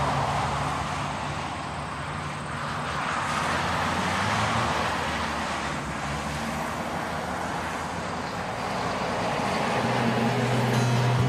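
SUV driving by on a paved road: engine and tyre noise that swells and fades.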